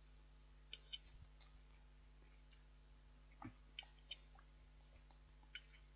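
Near silence: a faint steady electrical hum with a few soft, scattered clicks and ticks from eating.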